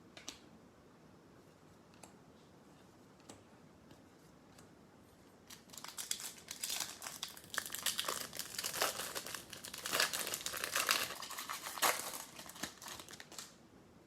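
A trading card pack's wrapper is torn open and crinkled in the hands. It starts about five seconds in and runs for several seconds of crackling.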